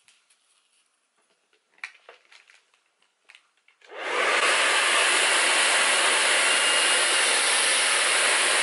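A hand-held hair dryer switches on about four seconds in and blows a steady, loud rush of air, aimed at hair wound on a round brush. Before it starts there are only a few faint rustles and clicks as the hair is handled.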